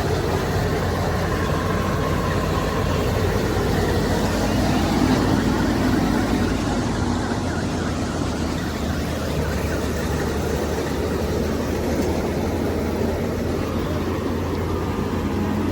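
Panesar G60 mini combine harvester's engine running steadily, a constant low hum with machinery noise over it.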